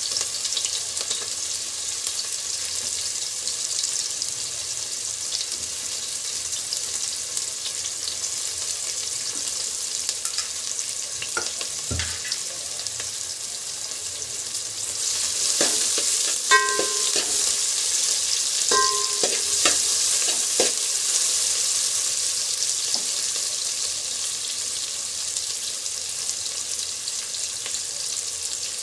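Sliced onions sizzling steadily as they fry in hot oil in a metal pot, stirred with a metal spoon. Over the middle of the stretch the spoon knocks against the pot a few times, twice with a short metallic ring.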